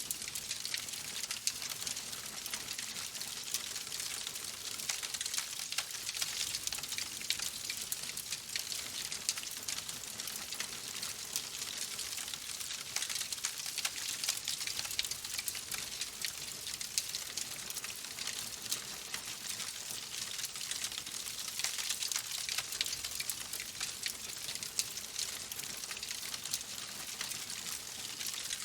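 Wood fire crackling steadily in a fireplace: a dense run of small pops and snaps over a soft hiss, with no lull.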